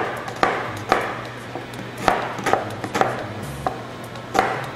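Chef's knife chopping an onion on a plastic cutting board: sharp knocks of the blade hitting the board, unevenly spaced about every half second.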